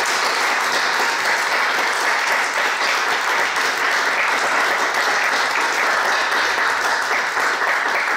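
Audience and panel applauding: dense, steady clapping that holds at one level throughout.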